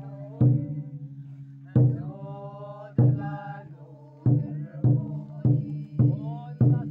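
A large barrel drum beaten in single deep strokes, about one every second and a quarter at first and then about two a second from roughly four seconds in, under chant-like group singing.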